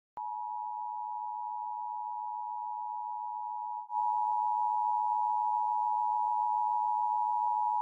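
Broadcast test tone: a single steady pure pitch that starts with a click. About four seconds in it drops out for an instant and returns a little louder, with a hiss behind it.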